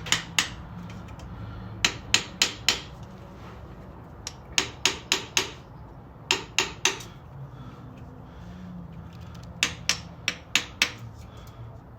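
Light hammer taps on a chisel, driving a rear main seal evenly over the crankshaft lip. The taps come in short quick groups of three to six, with pauses between the groups.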